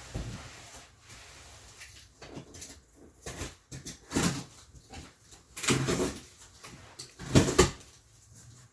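Cardboard shipping box being cut open with a box cutter: irregular scrapes and rips as the blade slits the packing tape and the flaps are pulled apart, the loudest pair of rips near the end.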